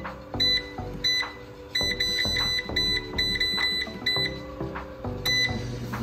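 PowerXL air fryer's touch control panel beeping, one short high beep per button press as the time and temperature are set, with a quick run of beeps around two to three seconds in. Background music plays underneath.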